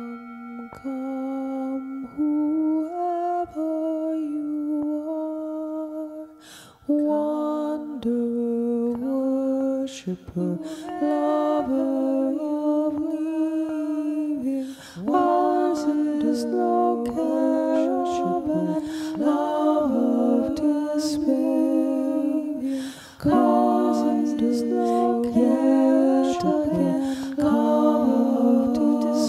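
Unaccompanied voices humming the melody of a slow hymn without words, with harmony parts layering in from about the middle onward. A singing bowl rings faintly underneath at the start and fades out within the first few seconds.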